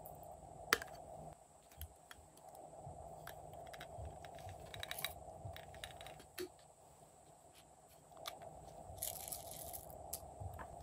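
Faint clicks and taps from small plastic glitter containers, with glitter and sequins sprinkled onto slime; one sharp click about a second in and a short rustling hiss near the end, over a faint steady hum.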